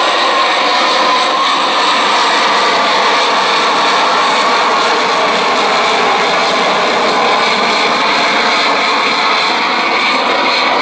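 Lockheed Martin F-35B's Pratt & Whitney F135 jet engine running loud and steady in short-take-off/vertical-landing mode, with the lift-fan door open and the rear nozzle swivelled down.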